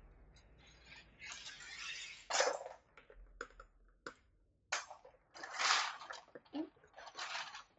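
Packaging and small plastic parts being handled and cleared away: bursts of rustling with light clicks and clinks, a few seconds apart.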